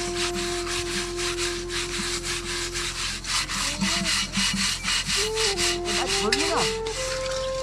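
Fast, rhythmic rasping strokes, several a second, like sawing or scrubbing, with a held, stepping melody underneath.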